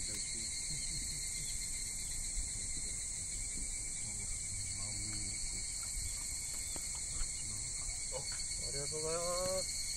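A night chorus of crickets and other insects trilling steadily and without a break, with faint voices in the background and a few spoken words near the end.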